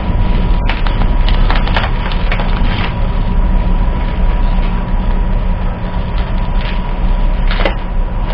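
Plastic bubble wrap and its bag crinkling and crackling as hands pull at the tight wrapping, irregular sharp crackles clustered in the first three seconds and again near the end, over a steady low rumble.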